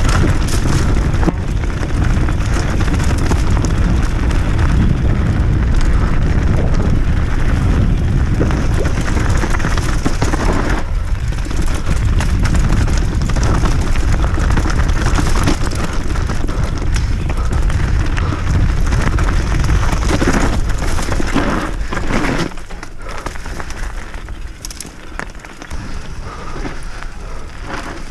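Fast downhill mountain-bike run heard from a bike- or body-mounted action camera: wind buffeting the microphone with a heavy low rumble, and tyres and frame rattling over loose rock. About three-quarters of the way through it gets noticeably quieter as the trail turns to smoother dirt.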